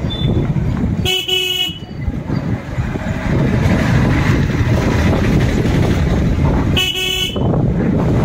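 A motorbike horn beeps twice, about half a second each and some six seconds apart, at the same steady pitch both times, over the low steady rumble of riding.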